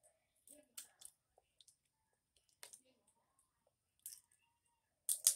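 Crab leg shells being cracked and picked apart by hand: a scatter of sharp, high clicks and crackles, with the loudest cluster near the end.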